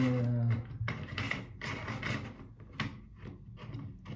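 Irregular small clicks and knocks of hands handling a metal tripod leveling base and trying it in the tripod's base plate. A short low voiced hum sounds in the first half-second.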